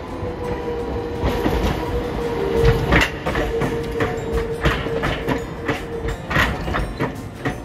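Hiroshima Electric Railway streetcar wheels running over the special trackwork at a curve and junction, knocking irregularly over the rail joints and crossings, the loudest knock about three seconds in. A steady whine runs under them and stops about six seconds in.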